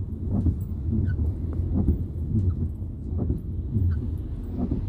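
Steady low rumble inside a car's cabin while driving in rain, with short, irregular squeaky sounds recurring on top every half second or so.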